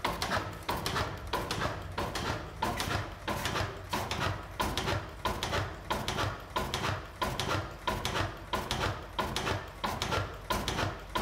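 Crossley horizontal single-cylinder gas engine running, giving an even rhythm of knocking beats at about two a second.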